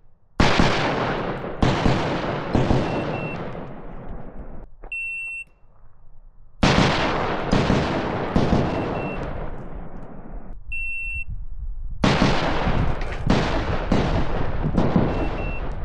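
Electronic shot-timer start beeps, each followed by a quick string of pistol shots. There are three strings of several shots, and each shot trails off in a long echo. Fresh strings start after beeps about five seconds in and about eleven seconds in.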